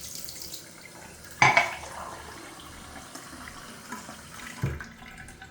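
Bathroom tap running cold water in a steady stream, with a sharp knock about a second and a half in and a dull thump near the end.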